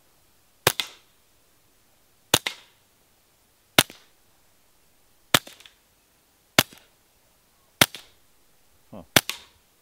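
Ruger 22/45 Lite pistol firing .22 LR through a SilencerCo Spectre II suppressor: seven shots about a second and a half apart. Each is a short sharp crack followed at once by the click of the action cycling, the shot itself about as loud as the action.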